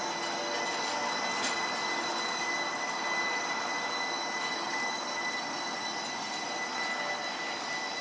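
Streetcar turning through a tight curve at low speed: a steady high-pitched squeal from its wheels on the curved track, over an even rolling hiss.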